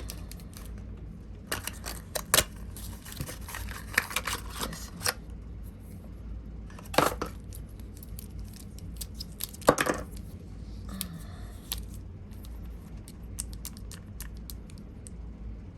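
Nail-product packaging being unwrapped and handled: short bursts of tearing and crinkling with scattered clicks, the loudest about 7 and 10 seconds in.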